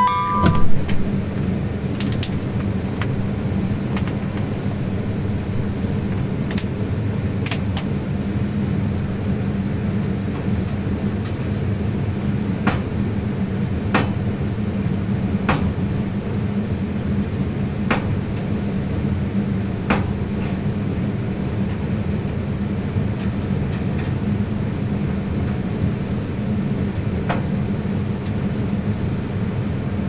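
Blue Star cold-room evaporator unit running with a steady hum and fan noise. Scattered light clicks and knocks sound over it, with a louder knock about a second in.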